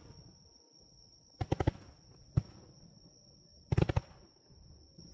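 Fireworks bursting: volleys of sharp bangs from aerial shells, a quick run of about four bangs a second and a half in, a single bang a second later, and another rapid cluster about a second and a half after that.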